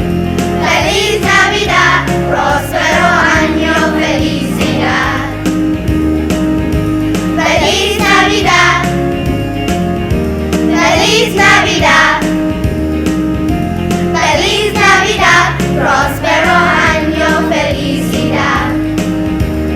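Children's choir singing with instrumental accompaniment over a steady beat.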